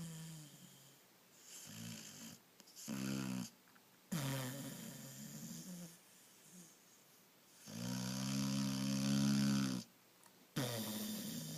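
Snoring: a run of irregular, rasping, pitched snores, some short and some drawn out. The longest and loudest lasts about two seconds, near the end.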